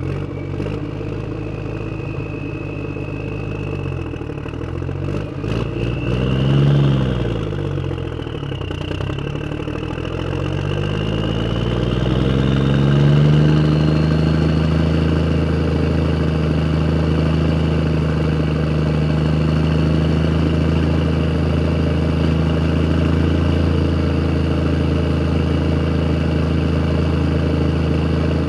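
Vehicle engine running: it revs up and drops back once, then climbs to a higher, steady speed that holds to the end. A few brief clicks come shortly before the first rev.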